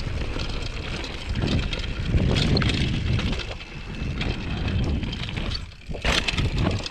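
2014 Giant Glory downhill mountain bike running fast down a dirt trail: tyres on dirt and loose stones, the bike clattering over bumps, and wind noise on the camera microphone. There is a brief lull just before a sharp, loud clatter near the end.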